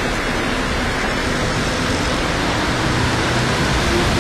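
Steady hiss of rain and tyres on a wet road, with the low running of passing traffic: a bus, auto-rickshaws and motorbikes.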